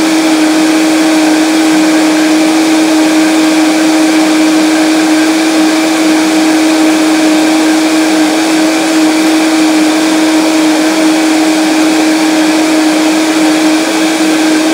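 Vitamix blender running on its high setting, blending a liquid fruit smoothie. It is loud and steady: one constant motor hum over a rushing noise, with no change in speed.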